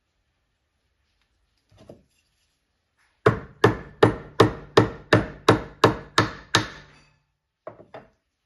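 Sharp taps driving small brass oilers into drilled oil holes in the mini lathe's metal slide: ten quick strikes at about three a second, then two lighter taps near the end.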